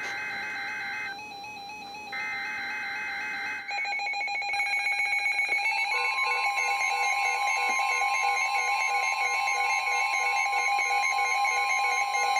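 NOAA Weather Radio SAME alert header: two bursts, each about a second long, of a harsh two-tone data warble. From about four seconds in, several weather radios' alert alarms start beeping together. About six seconds in, the steady warning alarm tone joins them, announcing a flood warning.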